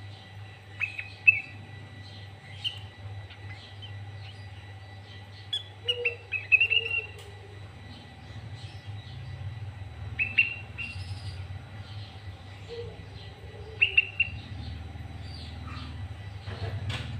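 Sooty-headed bulbul (kutilang) calling in short phrases of bright chirps, several seconds apart, over a steady low hum.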